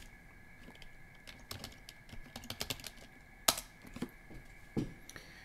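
Typing on a computer keyboard: a quick run of light key clicks, with two louder key strikes about three and a half and five seconds in.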